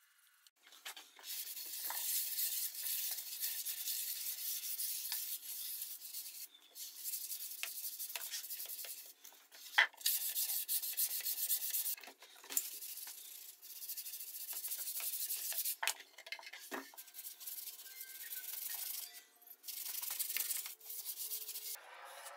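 Hand-sanding a urethane-coated Douglas fir surface with a round sanding pad, which is light sanding between coats of finish. The rubbing strokes come in spells of a second or two with short breaks, and there are a few sharp taps, one loud near the middle.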